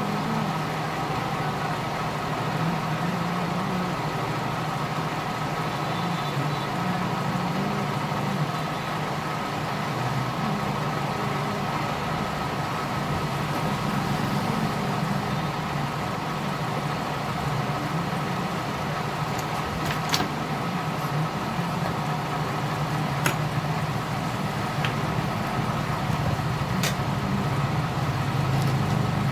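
Steady low mechanical drone like a running engine, unchanging throughout, with a few faint sharp clicks in the second half.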